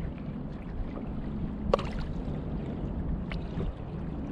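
Water lapping and light splashing beside a plastic kayak as a hand dips in the water, with a sharp click a little under two seconds in and a fainter one later.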